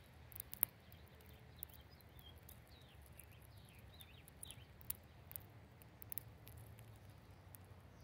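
Small birds feeding: scattered faint clicks and taps of pecking and scrabbling at feed, one sharper click about half a second in, with a few faint short chirps over a low steady hum.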